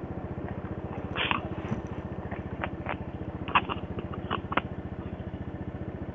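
Motorcycle engine idling with a steady, rapid, even putter, with a few light clicks and knocks over it.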